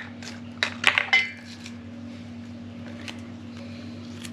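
Glass jars clinking and knocking as they are handled: three sharp knocks in the first second or so, the last ringing briefly. A steady low hum carries on underneath.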